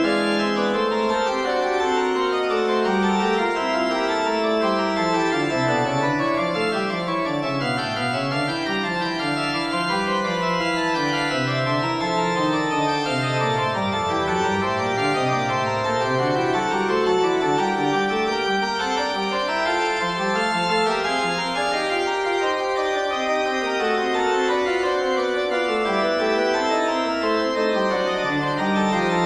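Organ music: held chords over a lower line that moves up and down in steps, at a steady volume throughout.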